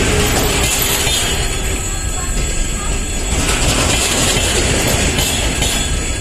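Double-deck passenger coaches rolling past close by: a heavy, steady rumble of wheels on rail, with some knocks and a thin high wheel squeal over it.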